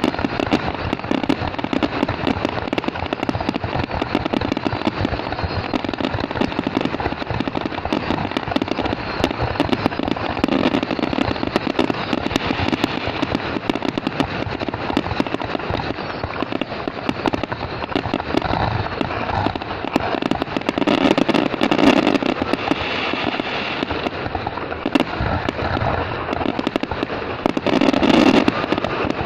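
Fireworks display going off without pause: a dense stream of cracks and pops over a steady rumble, swelling louder about two-thirds of the way through and again near the end.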